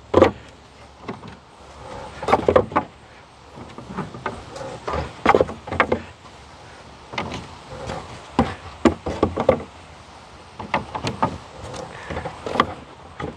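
Plastic beehive frames being slid into and lifted out of a wooden hive box, clacking and knocking against the wood and against each other in irregular clusters of sharp knocks.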